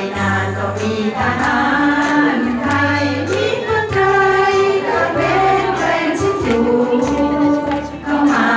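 A woman sings a slow Thai song into a microphone, holding long notes with vibrato, over a backing track with pulsing bass and light percussion.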